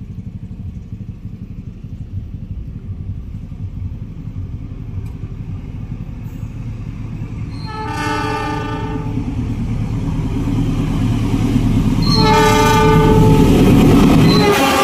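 Diesel-electric locomotive, a KAI CC 206, approaching and sounding its horn twice, each blast lasting about a second and a half, the second one longer. Its low engine rumble grows steadily louder until it reaches the crossing near the end.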